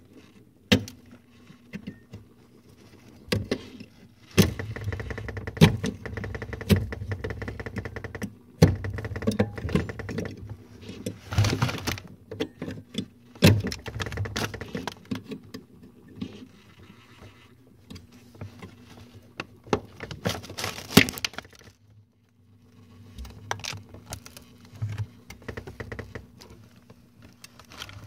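A metal fork scraping and knocking against ice and the plastic ejector of a GE refrigerator's ice maker, prying at ice stuck in the mold. It comes as a string of sharp clicks and taps with stretches of scraping, easing off about two thirds of the way through.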